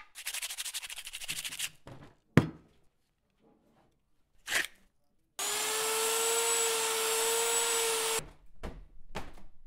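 Angle grinder fitted with a sanding disc running against plywood for about three seconds: a steady whine over harsh sanding noise, starting about halfway through and cutting off abruptly. Before it come a brief burst of rapid scraping and a single knock.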